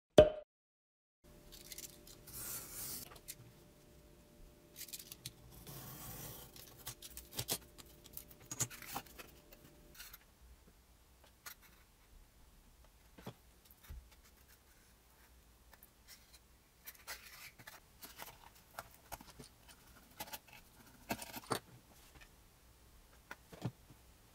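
Faint handling noises of foamboard being worked on a cutting mat: light rubbing and scraping with scattered small clicks and taps.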